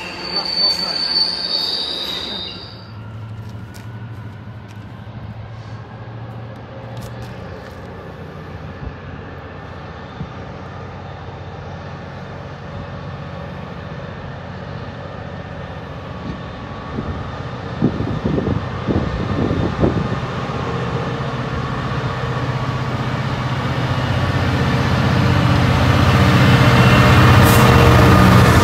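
Freight wagons rolling through with a high wheel squeal that stops about two and a half seconds in. Then a diesel freight locomotive, a Class 66, approaches and passes close by hauling open box wagons, its deep engine note growing steadily louder toward the end.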